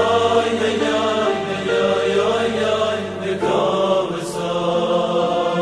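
A Hebrew Jewish song: a man singing over instrumental backing, with the accompaniment changing about three and a half seconds in.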